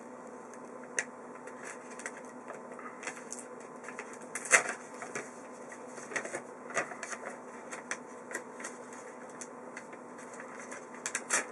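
Magic: The Gathering cards and their packaging being handled by hand: light, irregular clicks and rustles, a sharper click about four and a half seconds in and a quick run of clicks near the end, over a faint steady hum.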